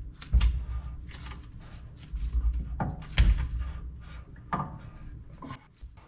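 Scattered knocks and clunks, the loudest about three seconds in, from hands working the Ford 8.8 differential's ring and pinion gears, rolling the marking paint between the teeth to print a contact pattern.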